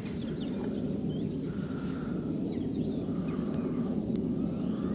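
Outdoor ambience: a steady low rumble of background noise with small birds chirping in short, high calls throughout.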